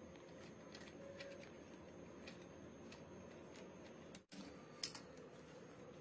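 Near silence: faint room tone with a few small clicks from hands handling a plastic cable set-top box and its cables. There is a brief dropout a little past four seconds in, followed by a sharper click.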